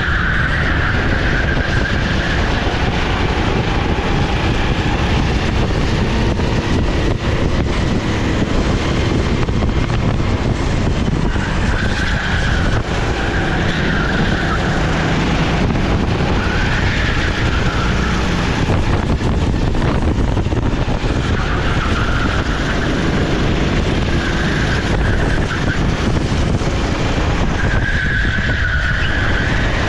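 Sodi SR4 rental kart's 390cc single-cylinder four-stroke engine running hard at race pace, steady and loud, with brief higher-pitched tyre squeals about every few seconds through the corners.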